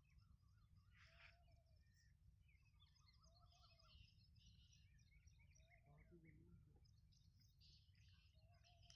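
Near silence with faint birdsong: scattered chirps from several birds and one short, lower call repeating about every two and a half seconds, over a faint low rumble.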